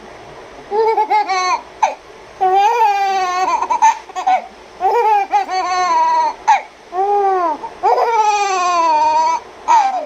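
Baby squealing and laughing: a string of about seven high, drawn-out squeals, many sliding down in pitch.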